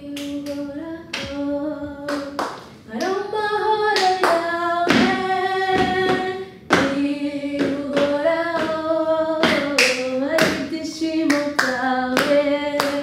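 Singing with hand claps: a voice holds long notes that step up and down in pitch, with sharp claps struck at irregular intervals.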